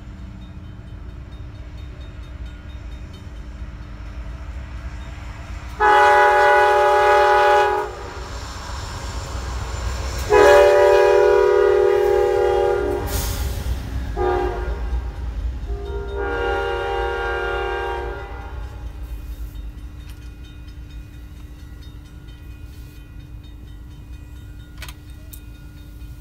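Passing train's locomotive horn sounding three blasts a few seconds apart, the middle one the longest, over the low rumble of the train running by.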